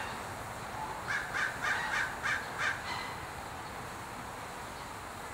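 A series of six short, harsh animal calls in quick succession, about three a second, then steady outdoor background noise.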